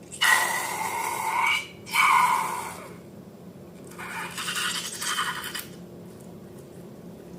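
Squeaky rubbing and scraping in three bursts: two loud ones close together, then a fainter one about four seconds in.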